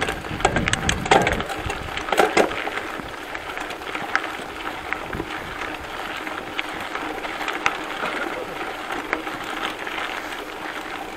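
Mountain bikes climbing a dirt track: tyres crunching over loose gravel, with many scattered clicks and rattles from the bikes.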